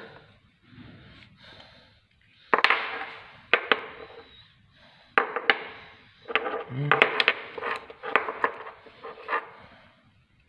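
Steel tie rod and tie rod end knocking and clinking against each other and a hard floor as they are handled: a dozen or so separate sharp metallic knocks with a short ring, sparse at first and coming closer together in the second half.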